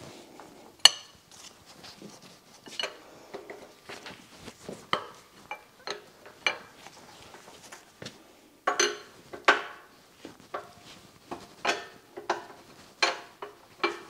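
Wrench and hand tools clinking and knocking on the cast-iron head of a DoAll milling machine: scattered sharp metallic clanks, the loudest about a second in and a run of them around nine seconds in.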